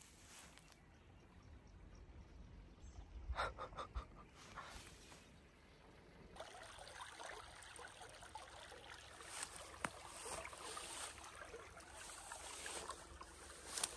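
Faint outdoor ambience of a small creek trickling, with a low wind rumble. About six seconds in the sound changes abruptly to a brighter, steady hiss.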